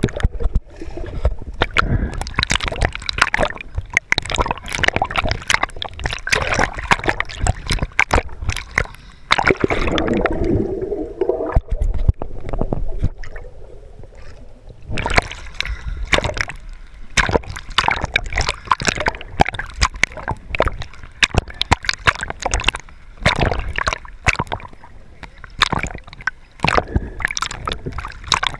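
Sea water splashing and sloshing around a camera that keeps dipping in and out of the surface as snorkelers swim, with gurgling bubbles and many sharp splashes, and a calmer stretch about halfway through.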